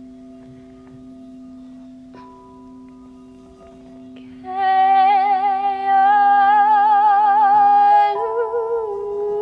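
Crystal singing bowls ringing with steady held tones; one is struck lightly about two seconds in, adding a higher tone. About halfway through, a voice joins with loud, sustained wordless sung notes with vibrato, stepping down in pitch near the end.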